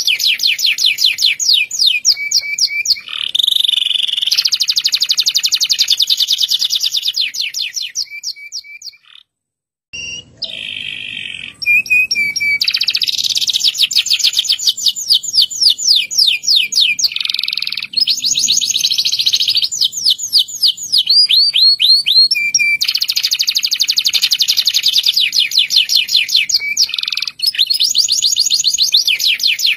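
A canary singing long, fast trilled rolls of rapid repeated high notes, phrase after phrase, with a brief silent break about nine seconds in.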